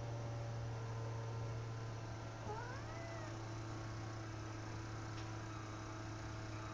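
A cat meows once, a short call rising then falling in pitch about two and a half seconds in, over a steady low hum.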